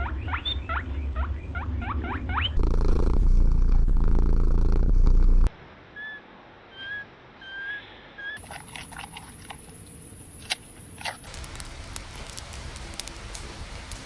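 A run of animal sounds in short edited clips. First come about eight quick rising squeaks over a low rumble, then a loud low rumble for about three seconds. A few soft short squeaks follow, then scattered clicks.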